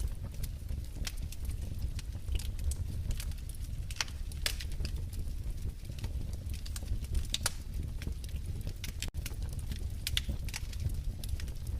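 Wood fire crackling in a fireplace: irregular sharp pops and snaps over a steady low rumble of the flames. The sound cuts out for an instant about nine seconds in.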